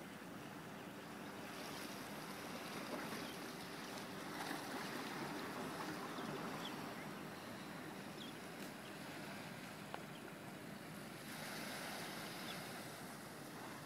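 Seaside ambience: small waves lapping at a rocky jetty and wind on the microphone, with a faint low hum in the first half.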